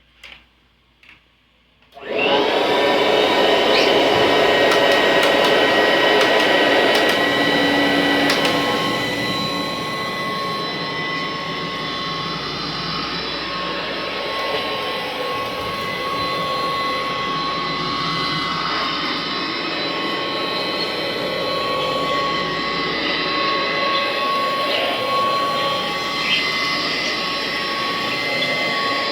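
Kirby Classic upright vacuum cleaner switched on after a couple of clicks: its motor spins up with a brief rising whine, then runs steadily with a high whine over the rush of the fan. A little over half-way through the first third it settles slightly quieter.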